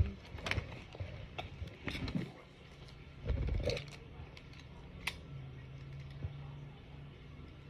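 Handling noises of small gift items and a box: scattered clicks and knocks, with a louder thump about three seconds in, then a faint low steady hum.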